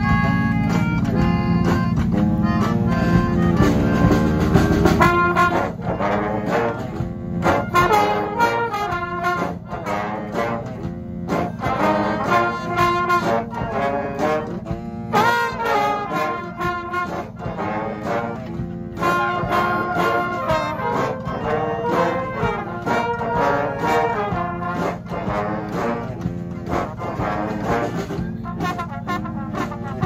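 Brass street band playing a tune together, with trombones, trumpets and clarinet. A steady low drone sits under the music for the first five seconds, then stops.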